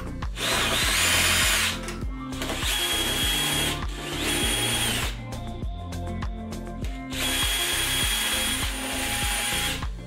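Cordless drill-driver running in four bursts of one to two and a half seconds with a steady high motor whine, backing out the screws around a dishwasher door.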